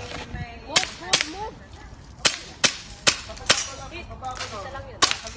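Airsoft gun firing seven sharp shots, mostly as quick double taps: three pairs followed by a single shot near the end.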